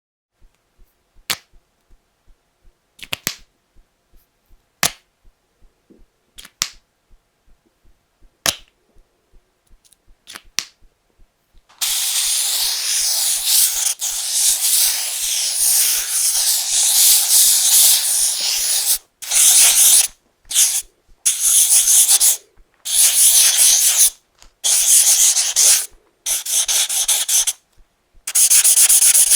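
Felt-tip marker's cap pulled off and snapped back on several times, each a sharp click, some in quick pairs. About twelve seconds in, the felt tip starts scratching across paper in a long continuous stroke, then in shorter strokes with brief pauses between them.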